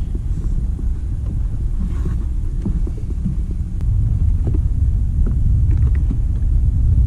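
Wind buffeting the camera microphone: a steady low rumble.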